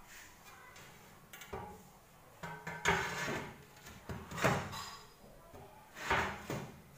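Ceramic tile being shifted and set upright against other tiles: about four short scrapes and knocks, roughly a second and a half apart, the loudest a little past the middle.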